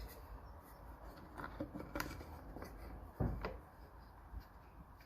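Light handling noises of the mitre saw's dust-extraction fitting being worked on by hand: scattered small clicks, a sharper click about two seconds in and a low knock a little after three seconds.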